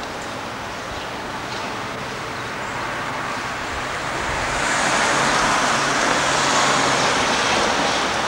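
Road traffic: a car passing on the street, its tyre and engine noise swelling to a peak about five to seven seconds in and then easing off.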